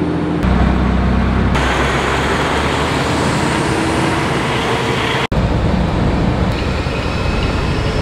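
Semi truck's diesel engine and road noise, first a low rumble from inside the cab, then a steadier rush of engine and wind outside as a grain semi drives off. The sound cuts off abruptly just over five seconds in and switches to the steady drone of the cab on the road.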